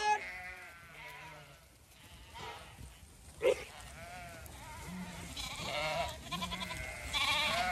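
Zwartbles sheep bleating, several separate calls over a few seconds, some with a wavering pitch; the loudest is a short bleat about three and a half seconds in.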